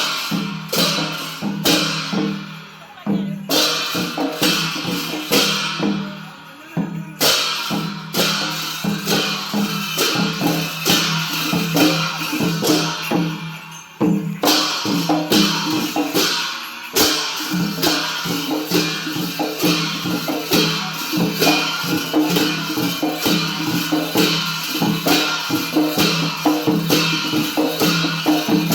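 Traditional Newar percussion music of drums and clashing cymbals playing a fast, driving rhythm for a Lakhe masked dance, with a few brief breaks in the beat.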